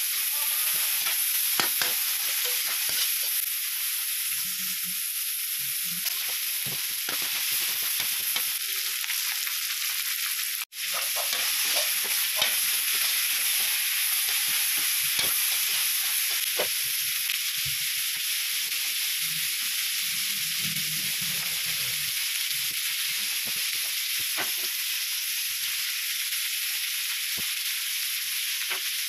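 Meat and vegetables sizzling in a wok while a metal spatula stirs and scrapes them around the pan, with frequent clicks of the spatula against the metal. The sizzle is steady and cuts out for an instant about ten seconds in.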